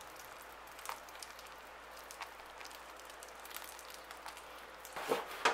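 Thick homemade custard pouring from a saucepan onto puff pastry in a baking tin: faint soft ticks and patters over a steady hiss, with a few louder knocks near the end.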